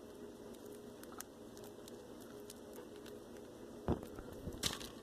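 Small pet birds pecking at food held in a hand: light, irregular clicks of beaks, with two louder knocks about four and four and a half seconds in.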